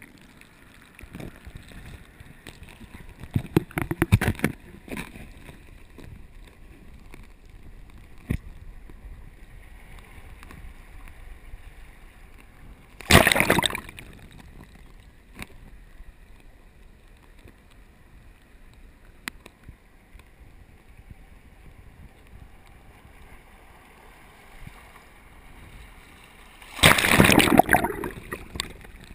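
Surf burbling into a tide pool, heard from under the water surface: a steady low bubbling churn, with surges of rushing water about four seconds in, about thirteen seconds in, and a longer, loudest one near the end.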